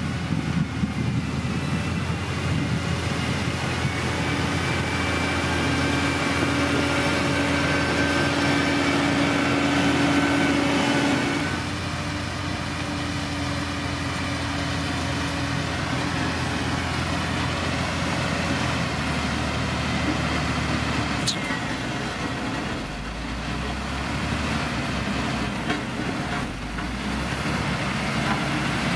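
Heavy diesel earth-moving machinery running steadily, its engine note dropping at about twelve seconds and shifting again around twenty seconds as the engine speed changes.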